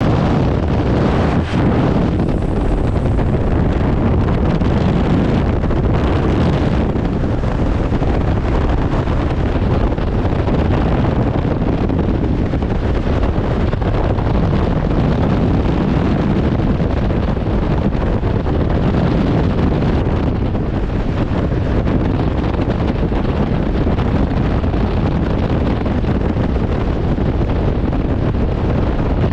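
Loud, steady rush of freefall wind buffeting the camera's microphone during a tandem skydive.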